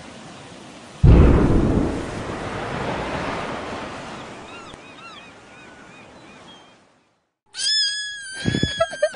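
An explosion sound effect: a sudden loud blast about a second in, rumbling and dying away over about six seconds. Near the end comes a high, strained, cat-like yowl.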